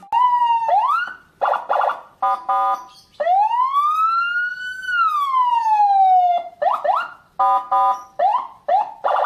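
Senken CJB100BD electronic siren cycling through its tones: short rising whoops, harsh buzzing horn blasts, and one long wail that climbs for about a second and a half, then falls for about as long. More whoops and horn blasts follow near the end.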